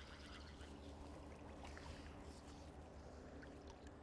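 Near silence: a faint low background hum with soft, scattered water sounds.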